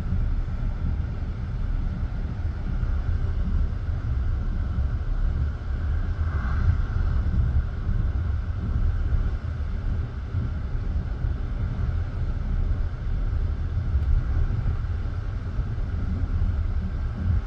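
Passenger train carriage running along the line: steady low rumble of wheels on rail, with a brief higher tone about six and a half seconds in.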